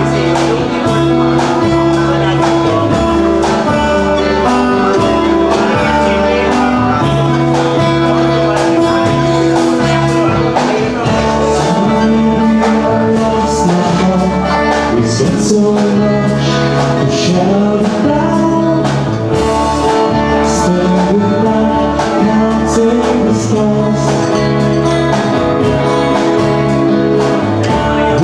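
Live band playing a song: strummed acoustic guitar with bass and drums, and a man singing.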